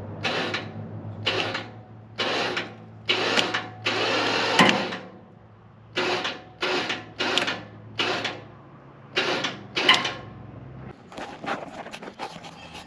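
Short bursts of mechanical clatter from a metal mechanism working in strokes, about one a second, over a steady low hum. Near the end the hum stops and lighter, quicker ticks follow.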